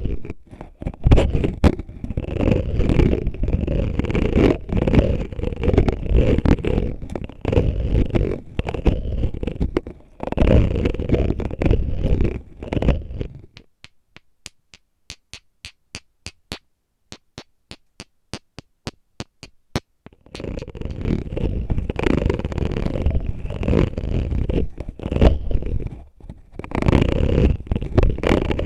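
An oil bottle rubbed and scraped over a microphone, a close, dense scratchy rustling. In the middle stretch the rubbing stops and gives way to a run of separate sharp taps, about three a second, before the scratching starts again.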